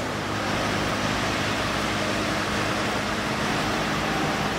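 MAN concrete mixer truck's diesel engine running steadily as the truck drives slowly, with an even hiss of road and air noise over a low hum.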